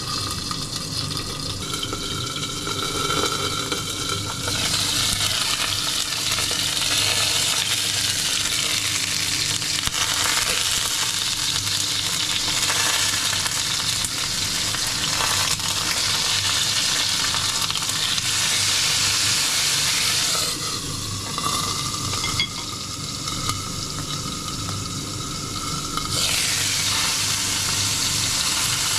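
Food sizzling as it fries, a dense hiss that grows louder a few seconds in, eases off for a few seconds around two-thirds through, then rises again near the end.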